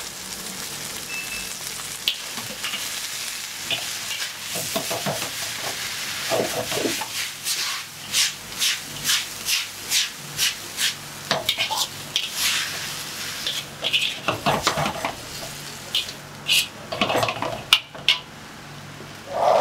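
Chow mein noodles sizzling in a wok on a gas burner while a spatula scrapes and knocks against the wok. The strokes come about twice a second from about five seconds in, then more scattered near the end.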